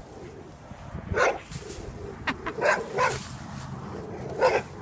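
A dog barking several times in short, irregular barks.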